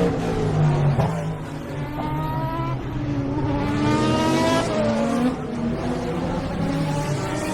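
Race cars' engines passing at speed one after another, their pitch rising as each car approaches and dropping as it goes by, several overlapping at once.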